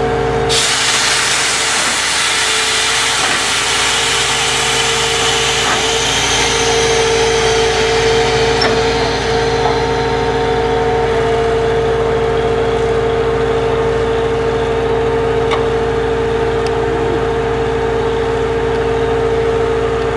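Truck-mounted borewell drilling rig running steadily while it drills, its engine holding a constant pitch. A loud rushing hiss sets in suddenly about half a second in and fades away over the next ten seconds.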